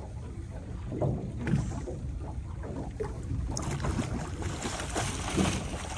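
Small boat riding at sea: a steady low rumble of wind and water against the hull, with a few scattered knocks and a louder rushing noise in the second half.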